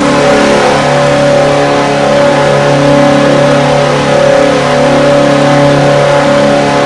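Hockey arena goal horn sounding one long, steady, loud blast.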